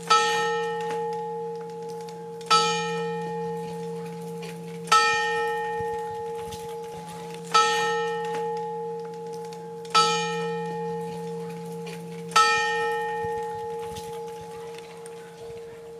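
Church tower clock striking the hour on a bell: six slow strokes about two and a half seconds apart, each ringing on and overlapping the next, marking six o'clock.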